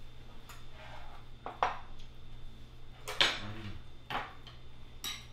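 Chopsticks and tableware clinking against ceramic bowls and plates during a meal: about half a dozen separate short clinks, spaced irregularly, over a low steady hum.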